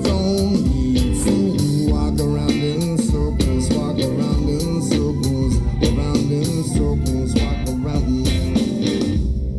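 Live band playing an instrumental passage of a rock song: guitar over a steady drum beat and bass.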